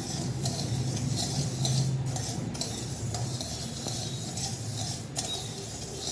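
A spoon scraping and stirring dry rice and moong dal grains around a kadai during dry roasting, in repeated strokes, over a low steady hum.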